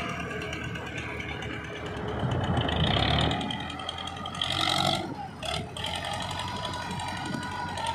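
Tractor engine running under load as its front-end loader works, with louder surges of noise about three seconds in and again just before five seconds.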